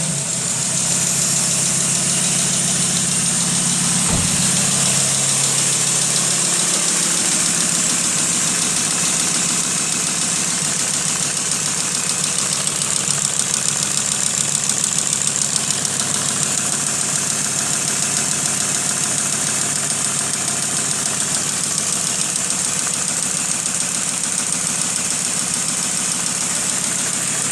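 Lancia Lybra's engine dropping back to idle after a rev and idling steadily, with a single knock about four seconds in. A strong high whine falls in pitch over the first few seconds, then holds steady; the owner presents the sound as a fault.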